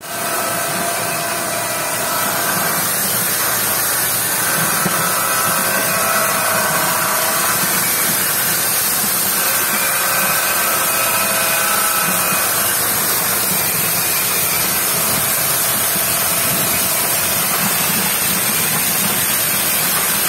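Sweet potato washing machine running steadily, its rollers turning the sweet potatoes, with a constant mechanical whir and a high hiss of water.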